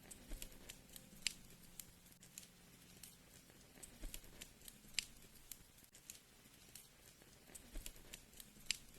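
Wood fire crackling: irregular sharp pops and snaps, a few of them louder than the rest, over a faint low hiss.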